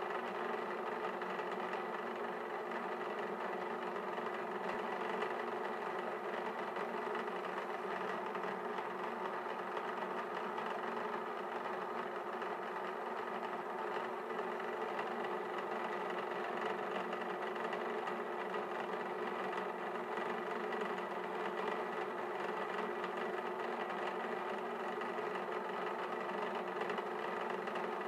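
Magnetic stirrer running at a constant speed and spinning a stir bar in a 20-litre HDPE carboy: a steady mechanical hum with a few fixed pitched tones.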